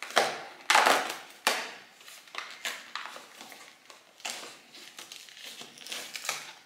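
Thin cardboard of an advent calendar door being torn and pried open by hand: irregular crackling and tearing, strongest in the first second and a half, then smaller crinkles as the flap is worked loose.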